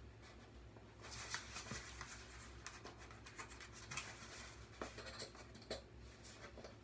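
Faint rustling, scratching and small clicks of a cardboard shipping box and its packing being handled and opened by hand, over a low steady hum.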